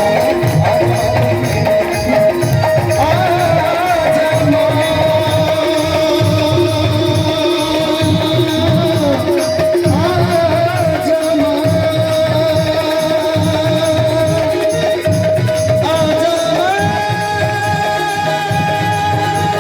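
Live devotional folk stage music: a long sustained melody line over steady hand-drum rhythm with a rattling shaker. The melody steps up to a higher held note near the end.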